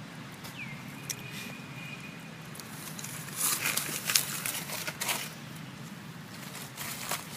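Dry leaf litter crackling and rustling in two spells, a longer one about three seconds in and a shorter one near the end. A faint high call slides down and holds briefly about half a second in.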